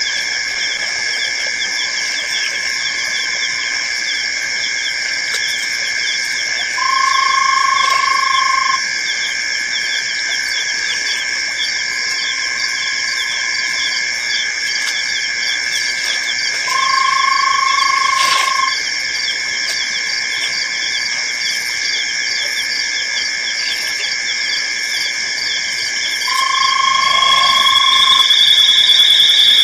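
Night chorus of frogs and insects at an African waterhole: a dense, steady high-pitched trilling. Three times, about ten seconds apart, a plain mid-pitched call sounds for about two seconds. Near the end a shrill, rising note builds and grows louder.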